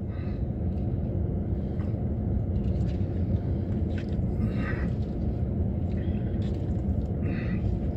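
Steady low rumble of a car idling, heard from inside its cabin, with a couple of faint brief sounds midway and near the end.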